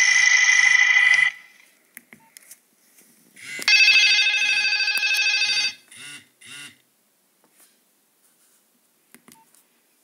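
Nokia 2220 slide phone's loudspeaker previewing ringtones. One ringtone cuts off about a second in. A few faint clicks follow, then a short electronic ringtone plays for about two seconds and fades out in a couple of pulses.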